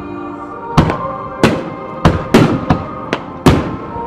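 Aerial firework shells bursting in a quick series of about seven sharp bangs, each with an echoing tail, starting about a second in. Music plays underneath.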